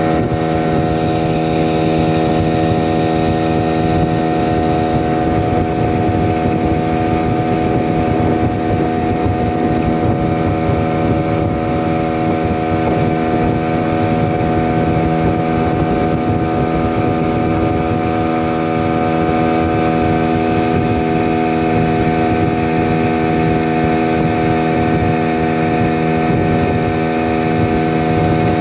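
Outboard motor of a small fishing boat running at a steady cruising speed, a constant drone that holds one pitch throughout, with wind noise on the microphone.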